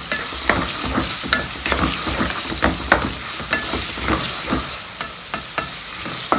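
Chopped onions sizzling in hot ghee and oil in a metal pot, stirred with a wooden spoon that knocks against the pot in irregular clicks about once or twice a second. The onions are being softened, not browned.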